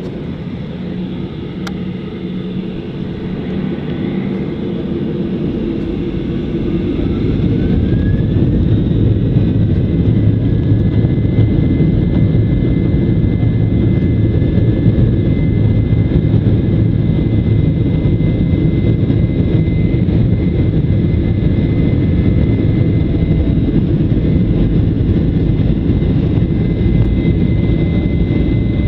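Jet airliner's engines spooling up to takeoff thrust: the rumble builds over the first eight seconds, with a rising whine, then holds steady at full power with a high engine whine.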